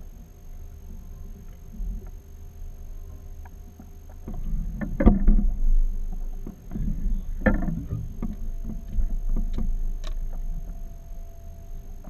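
Water slapping against a small boat's hull as it drifts, over a steady low rumble, with a run of knocks and clatter from about four seconds in, loudest twice.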